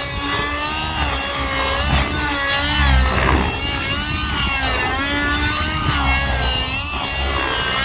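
OS 55 HZ two-stroke nitro engine with a tuned pipe in a Tron Nitron RC helicopter, running at high revs during aerobatic flight. Its pitch keeps rising and falling as the load changes.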